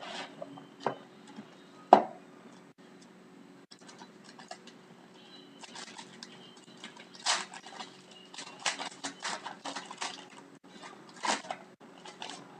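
Hands opening a box of hockey trading cards and handling the cards: irregular clicks, taps and rustles of cardboard and cards, with a sharp knock about two seconds in.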